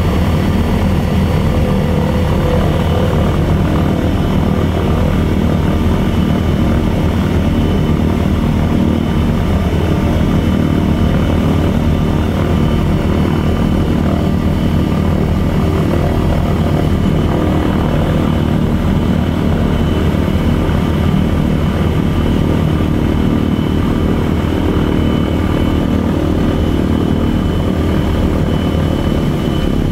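Lisunov Li-2's Shvetsov ASh-62IR nine-cylinder radial engines and propellers running steadily, heard from inside the cabin.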